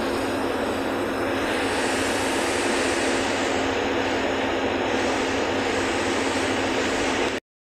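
Steady running noise of a city bus in motion, engine and tyre noise heard from inside the cabin, with a constant low hum under it. The sound cuts out abruptly near the end.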